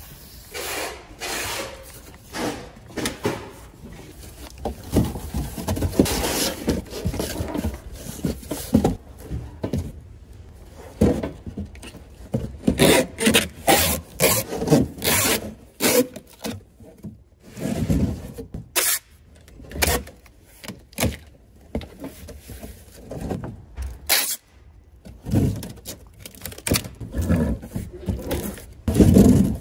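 Cardboard boxes being made up by hand: a quick run of rubbing, scraping and flapping cardboard sounds, with packing tape pulled off a hand-held tape gun across a box seam midway.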